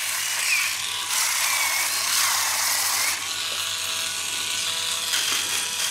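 Hangsun SR150 battery-powered electric callus remover running, its rotating abrasive roller giving a steady small-motor whir. Between about one and three seconds in it turns louder and rougher, then settles back to the steady whir.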